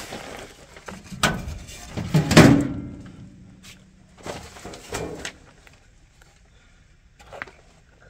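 Handling knocks and rustles inside a furnace cabinet, against its sheet metal and wiring. The loudest knock comes about two and a half seconds in, and the sounds grow quieter toward the end.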